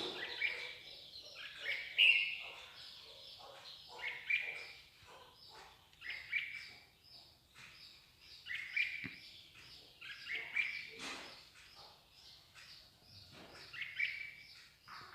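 Garden songbirds chirping and singing: runs of short high notes, with a louder phrase every two seconds or so.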